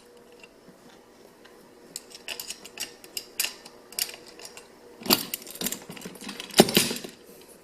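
Small steel hardware, washers and nuts, clinking and rattling as they are handled and picked out, with scattered light clicks and louder clatters about five seconds in and again near the end.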